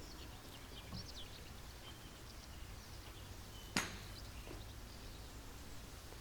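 Quiet outdoor ambience with a low steady background, a few faint high bird chirps, and a single sharp click or knock a little under four seconds in.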